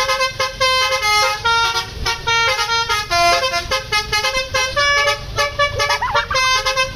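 Basuri telolet horn on a tour bus playing a fast tune, its pitched horn notes stepping up and down several times a second without a break.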